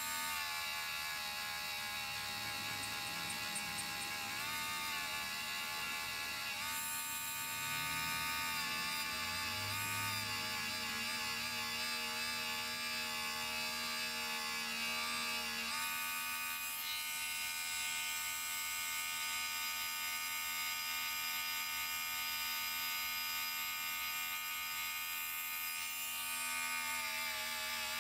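Small handheld rotary tool from a Harbor Freight mini drill kit, running with a felt polishing wheel pressed against a gold grill to polish out scratches: a steady high motor whine whose pitch shifts slightly a few times.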